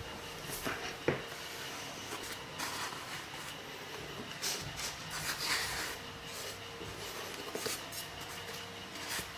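Soft rubbing and rustling with a few light clicks, louder in two patches in the middle, over a faint steady hum.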